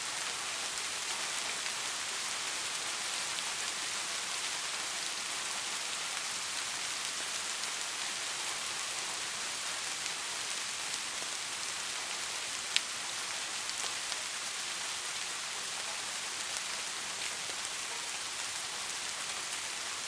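Steady rainfall: a dense, even hiss with scattered ticks of individual drops, and one sharper drop tick about thirteen seconds in.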